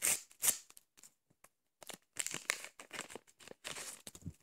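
A small sticker packet being torn open, its wrapper crinkling and tearing in irregular bursts.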